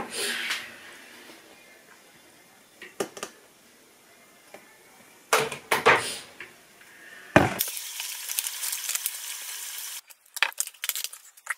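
Fridge door and bottles clunking, then a sharp click and a steady fizzing hiss for about two and a half seconds from a plastic bottle of carbonated pink grapefruit drink, which cuts off abruptly and is followed by a few light knocks.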